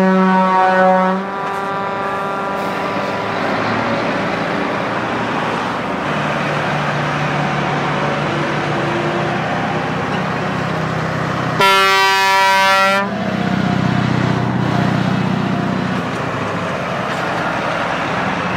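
A convoy of lorries drives past with engines and tyres running. A horn blast cuts off about a second in, and another loud horn blast of just over a second sounds about twelve seconds in, followed by a louder engine rumble as a lorry goes by.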